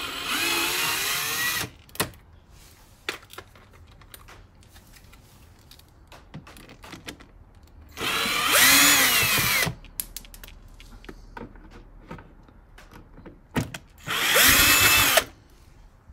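Cordless drill with a T25 Torx bit running in three short bursts, each about a second and a half, unscrewing Torx screws from a plastic wheel-arch liner; its motor whine bends up and down in pitch. Light clicks and knocks come between the bursts.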